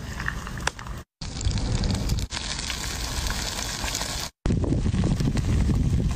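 Wood fire crackling under a stone slab, with a fish sizzling on the hot stone and a low rumble underneath. The sound drops out for a moment twice.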